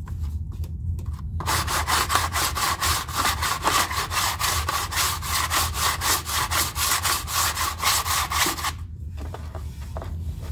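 Sandpaper on a hand sanding tool rubbing back and forth over hardened Bondo fiberglass filler on a sheet-metal rocker panel, in rapid scratchy strokes of about five a second. It starts about a second and a half in and stops shortly before the end.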